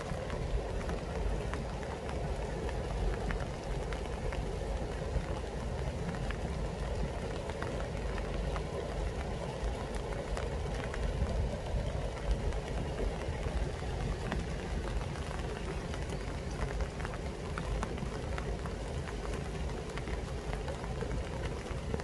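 Steady rain falling on apple trees in leaf, with scattered drop ticks over a constant low rumble.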